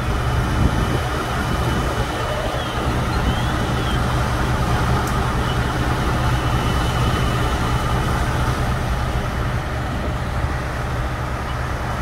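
Diesel engines of parked fire engines running steadily, a constant low drone.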